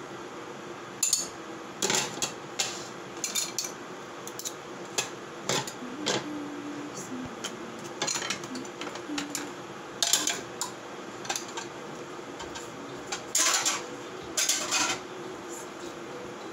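Kitchen utensils clinking and clattering against a cooking pan in irregular strikes, with two longer scrapes near the end, typical of ingredients being stirred or tossed in the pan.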